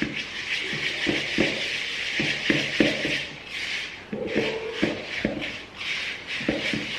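A spoon stirring and scraping a gritty butter and sugar mixture around a bamboo bowl, with repeated light knocks of the spoon against the wood.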